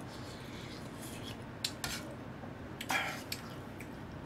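A metal spoon clinking and scraping against a metal ramen pot: two light clinks about one and a half seconds in, then a louder scrape about three seconds in.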